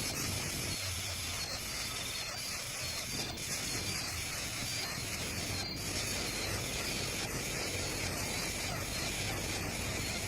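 A steady, high-pitched rasping hiss, typical of an insect chorus, with short high notes repeating throughout.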